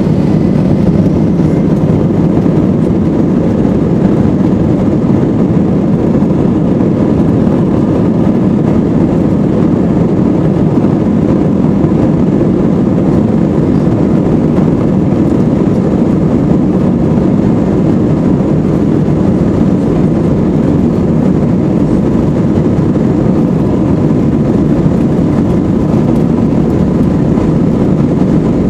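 Airbus A320 cabin noise during the takeoff roll: the jet engines at takeoff power and the wheels running over the runway, heard from inside the cabin as a loud, deep, steady rumble that builds over the first second and then holds level.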